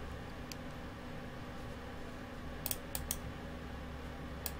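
Sharp clicks at the computer, of mouse buttons and keys: one about half a second in, three in quick succession around three seconds, and one more near the end, over a faint steady hum.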